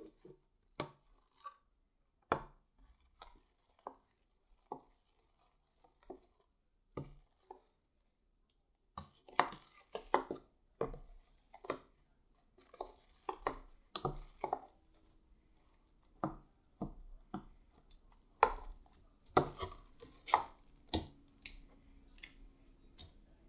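Metal spoon tapping and scraping against a glass bowl as beaded slime is mixed: irregular sharp clicks, sparse at first, then coming quickly from about halfway through.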